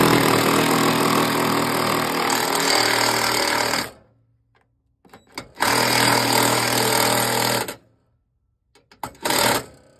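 Cordless impact driver running at full speed, driving long heavy-duty screws through a sheet-metal electrical enclosure into the wall behind. There is a long run of about four seconds, a second run of about two seconds, and a short burst near the end.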